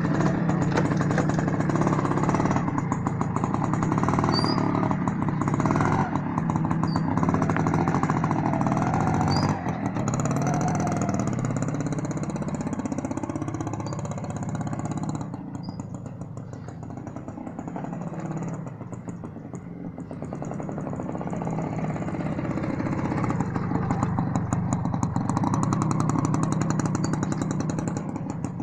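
1992 Honda motorcycle engine running and being revved as it pulls away, its pitch rising and falling with the throttle. Halfway through it fades as the bike rides off, then grows louder again as it comes back round.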